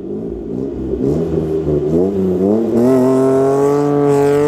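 A 4x4's engine revving hard at full throttle, its pitch climbing in steps and then held high, as the vehicle powers up a soft sand dune.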